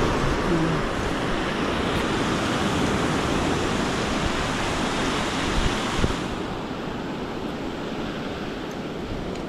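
Ocean surf breaking and washing over a cobble beach, with wind rumbling on the microphone. A couple of low knocks come about six seconds in, after which the wash sounds duller.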